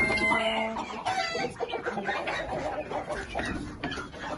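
Flock of chickens clucking, many short calls overlapping, with one drawn-out call in the first second.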